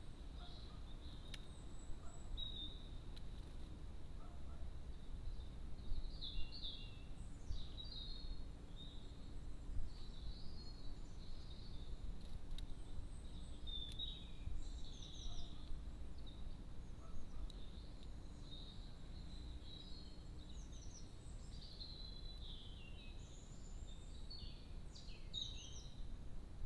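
Songbirds chirping and singing in short, varied calls and phrases, busiest from about six seconds in, over a low steady background rumble and a faint steady high tone.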